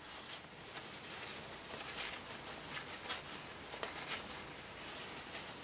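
Faint rustling and rubbing of a paper towel as excess epoxy putty is wiped off a resin statue, with a few light ticks.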